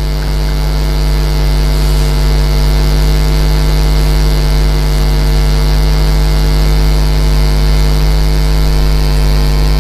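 Loud, steady electrical mains hum: a low drone with a dense, buzzy stack of overtones that does not change.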